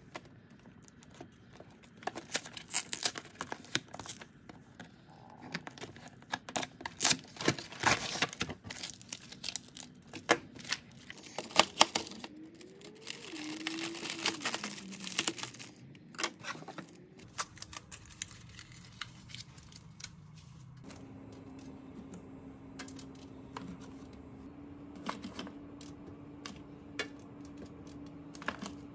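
Frozen-food packaging being opened: scissors cutting a cardboard samosa box, then a plastic bag crinkling and tearing, with many sharp crackles. Later come light taps and foil crinkles as frozen samosas are set on a foil-lined baking tray, over a steady low hum that starts about three-quarters of the way through.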